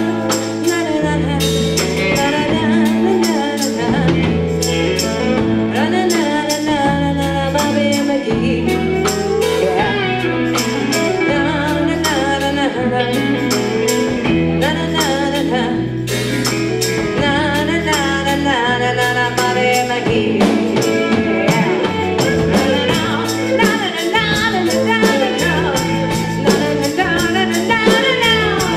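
Live band music: a bass line moving in held notes under a steady, even percussion beat, with a melodic lead line above.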